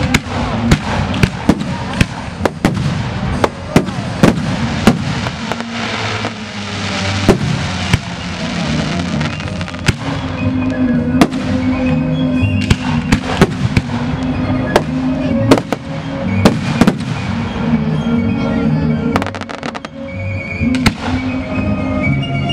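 Aerial fireworks shells launching and bursting in quick succession, sharp bangs several a second, thinning out somewhat in the second half. Music with a low, stepping bass line plays underneath.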